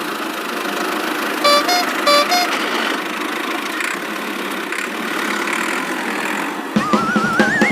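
Cartoon vehicle sound effect: a steady engine running, with a horn giving four short honks on two alternating pitches about a second and a half in. Music with a wobbling, rising tone comes back near the end.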